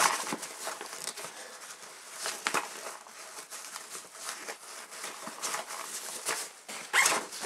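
Nylon fabric of a 5.11 Rush 72 backpack rustling and scrunching as gear is pushed into its pockets, with irregular sharper handling clicks and scrapes, the loudest near the start, about two and a half seconds in, and about seven seconds in.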